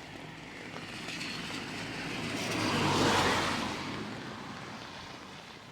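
A car passing on a rain-soaked road, its tyres hissing through the surface water, swelling to a peak about three seconds in and then fading away.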